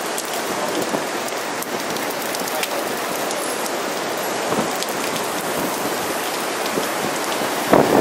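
Heavy rain from a hurricane's outer squall pouring down steadily and pattering on surfaces.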